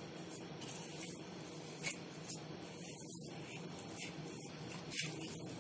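Hand kneading powdered sugar into soft bread dough in a steel plate: faint rubbing with light scrapes against the metal, two slightly louder ones about two seconds in.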